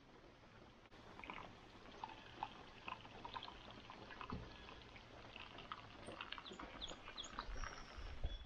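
Coffee poured from a camp-stove pot with a built-in press into a mug: a faint trickling pour, with small clicks from the pot and lid and a soft knock about four seconds in.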